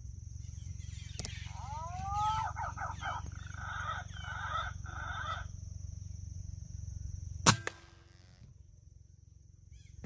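Bird calls, rising whistled glides and then quick pulsed notes, from about one and a half to five and a half seconds in, over a steady low rumble and a thin high whine. About seven and a half seconds in comes a single sharp crack, the loudest sound, typical of an air rifle shot.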